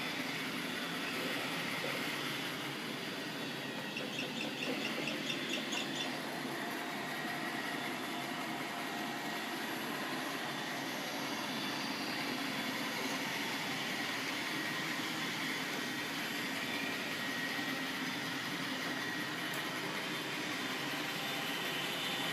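Roomba robot vacuum running: a steady motor whirr with brush hum, with a brief run of quick ticks about four seconds in.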